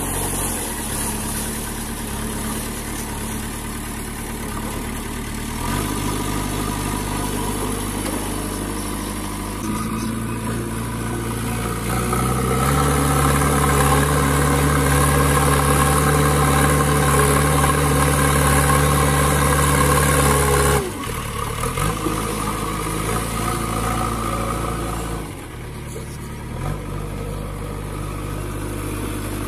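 Engine running with a steady hum. It steps up in pitch and gets louder about twelve seconds in, then drops back abruptly a little past twenty seconds. The hand-pushed plastic toys have no motor, so this is a laid-on engine sound.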